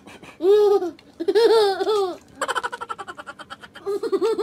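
A young boy laughing with a high-pitched voice: two drawn-out laughs, then a quick run of giggles, and another long laugh near the end.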